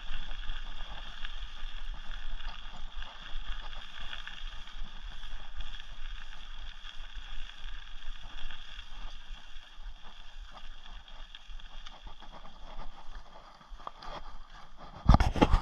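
Rocky Mountain Thunderbolt mountain bike rolling fast over a dirt and gravel trail: a steady rush of tyre noise with many small rattles from the bike. Near the end there is a short, much louder burst of noise.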